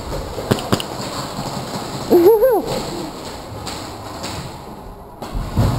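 Two sharp snaps about half a second in, then about two seconds in a short wavering cry from a person's voice, and a few low thumps near the end.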